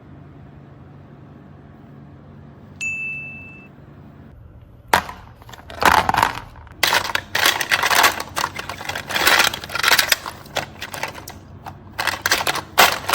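A single short ding about three seconds in, then a sharp click and loud, irregular rustling and crackling handling noises.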